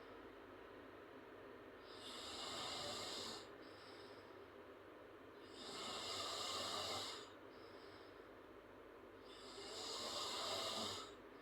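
A girl snoring loudly through an open mouth: three long snores about four seconds apart, each lasting about a second and a half, with softer breathing between them.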